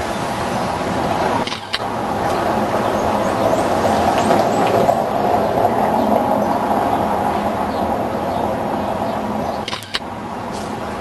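Street traffic noise: a motor vehicle passing, swelling to its loudest in the middle and easing off, with two brief dropouts, one about a second and a half in and one near the end.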